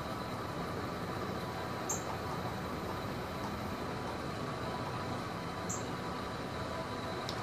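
36-inch industrial ceiling fan running on its high speed: a steady rush of moving air with a faint motor hum, and a few short high chirps.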